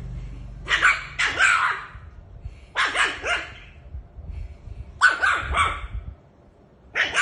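Dog barking in short clusters of two or three quick, high barks, with a cluster about every two seconds.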